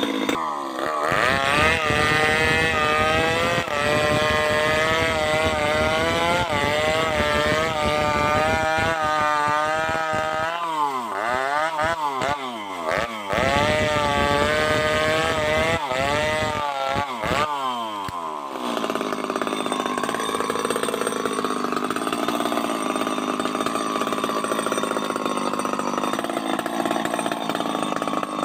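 Two-stroke chainsaw running at high revs with a wavering pitch, then revved down and back up several times in quick succession about halfway through. For the last third its sound turns lower and rougher, without a clear pitch.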